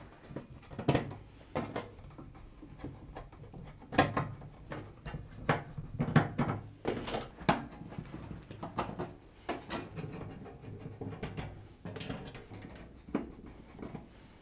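A Phillips screwdriver undoing the screws in the metal back panel of a Samsung ecobubble washing machine: irregular clicks and scrapes as the screwdriver is worked in the screw heads and screws turn in the sheet metal.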